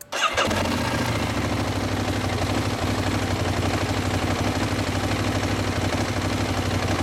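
Ducati 1098's L-twin engine idling steadily with a quick, even pulse. It comes in suddenly right at the start.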